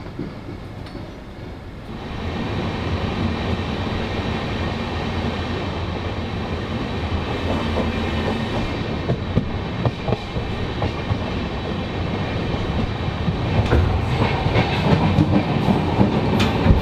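Shatabdi Express passenger train moving off and picking up speed, its wheels rumbling and clicking over the rail joints. The noise steps up sharply about two seconds in and grows louder toward the end.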